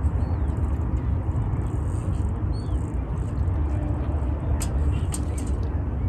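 A few faint, high bird chirps from waterbirds at the lake over a steady low rumble, with two sharp clicks near the end.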